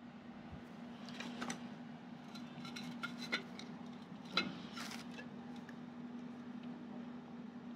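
Tableware clinking during a meal: a scatter of light knocks and clinks of dishes and utensils, the sharpest a little over four seconds in, over a steady low hum.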